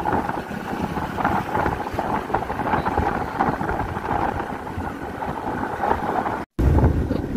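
Wind rushing over the microphone and road noise from a moving motorcycle, a steady noisy rush. It cuts out for a moment near the end and comes back with a heavier low rumble.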